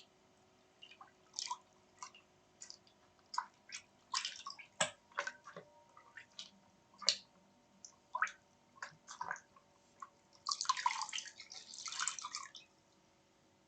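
A dog's wet mouth sounds: irregular licking and lip-smacking clicks, then a denser stretch of wet licking lasting about two seconds near the end.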